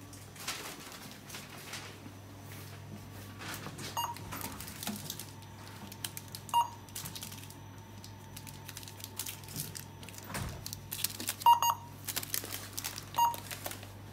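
Self-checkout scanner beeping as items are scanned: separate short beeps, with a quick double beep late on. Products are handled and rustle, over a steady low hum.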